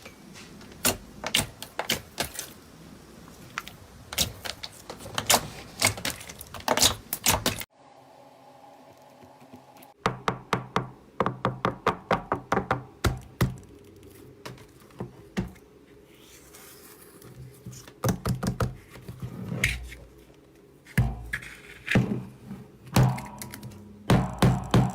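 Slime being squeezed and pressed by hand, giving runs of sharp, wet clicking pops, several a second. There is a short quieter break about eight seconds in.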